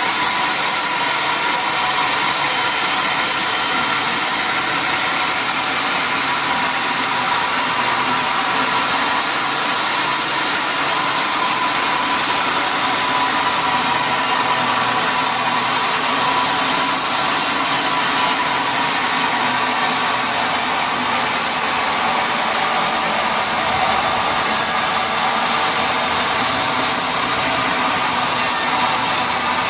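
Sawmill machinery running steadily: a constant mechanical drone with a faint steady whine in it, no change in load or pitch.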